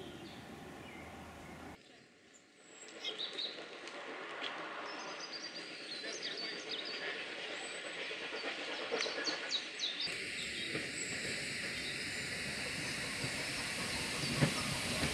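Birds chirping over faint outdoor quiet, then a steam-propelled train approaching. The locomotive's steam hiss and the train's running noise grow steadily louder over the last few seconds.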